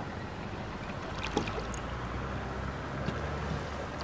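Water dripping and lapping around a wooden fishing boat as a wet net is hauled in over the side, with a few small splashes and knocks.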